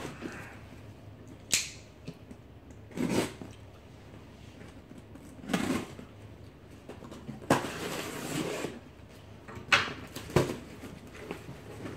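Cardboard box being handled and opened on a hard tabletop: a few dull knocks of the box against the table, a rough rustling scrape of cardboard lasting about a second, then two sharp clicks.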